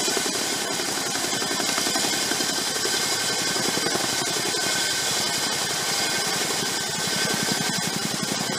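Boeing Chinook tandem-rotor helicopter hovering low with an underslung load: a rapid, steady thumping from its rotor blades under a steady high turbine whine.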